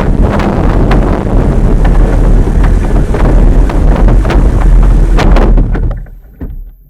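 Heavy wind buffeting the microphone, with scattered knocks and handling bumps, fading away near the end.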